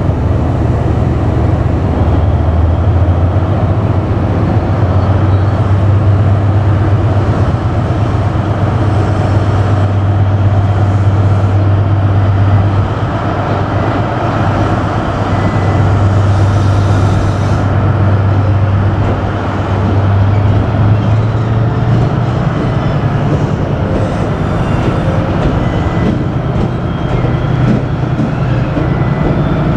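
Seven Stars in Kyushu train hauled by its DF200 diesel-electric locomotive, the engine making a steady low drone over rail noise, easing off briefly twice.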